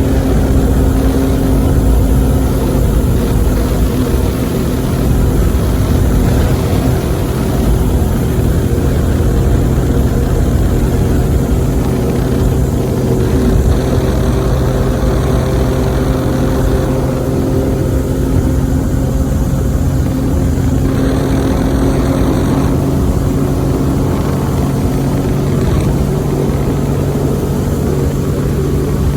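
Boat motor running steadily under way, a constant engine drone with a low rumble; the pitch shifts slightly partway through.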